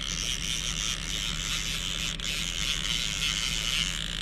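Fishing reel being cranked steadily, its gears giving a continuous whirring rattle as line is wound in. A steady low motor hum runs underneath.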